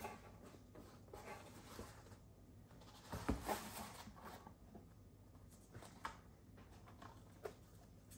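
Rustling and light clicks of packaging and cased graded cards being handled while a box is unpacked, with one louder rustle about three seconds in and a few sharp clicks near the end.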